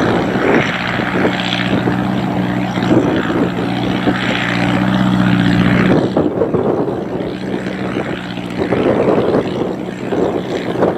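An engine running steadily with a low hum and a hiss over it; about six seconds in the hum fades and the hiss is left.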